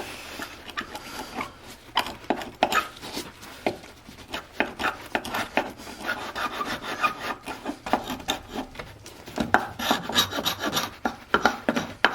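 Steel hand scraper scraping the surface of a wooden chair part in quick, repeated back-and-forth strokes.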